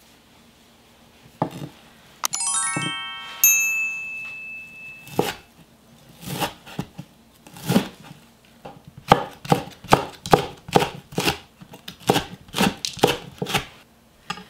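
A brief rising run of chime-like tones about two seconds in. Then a kitchen knife chopping wild chives on a wooden cutting board: a few spaced strokes, then quicker chopping at about two to three strokes a second in the second half.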